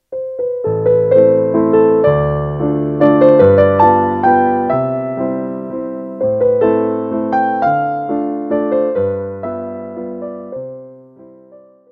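Background music: a gentle solo piano piece with melody over held chords, each note struck and dying away; it fades out near the end.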